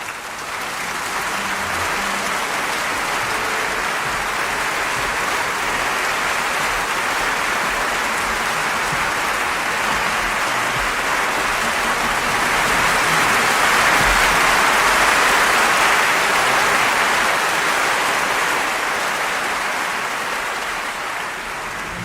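Crowd applause, many people clapping in a dense steady patter that swells louder in the middle and eases off toward the end.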